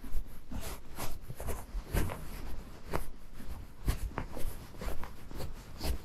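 Horse's hooves crunching on a snow-covered road: a steady run of hoofbeats, with a louder thump about once a second.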